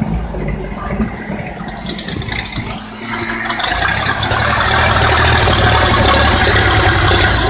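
Magneto-fired engine of a Bucyrus-Erie 24L drilling rig running with the choke still on, with a mechanical clatter. About three and a half seconds in it grows louder and stays louder.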